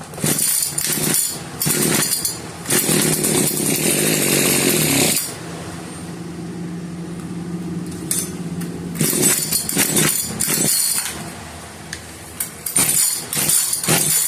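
Echo HC2020 hedge trimmer's small two-stroke engine being pull-started on full choke after a carburetor replacement. It catches after a couple of pulls and runs hard for a few seconds, then settles to a lower, steadier run, with more loud bursts of revving or pulls later on.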